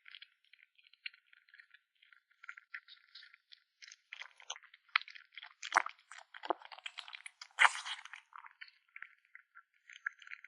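A kitten chewing meat: rapid, irregular crunching and clicking, with a few louder crunches in the middle.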